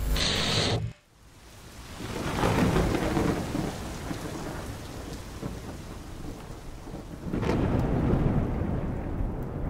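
A loud noisy sound cuts off abruptly about a second in. Then thunder rumbles twice over steady rain, each roll swelling slowly and dying away.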